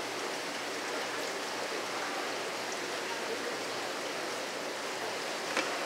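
A steady rushing noise, like running water, with a single sharp click about five and a half seconds in.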